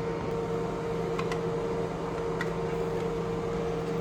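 Steady low hum from a room appliance or fan, with a few faint light clicks of plastic, three in all, from the plastic cap of a toilet fill valve being worked off.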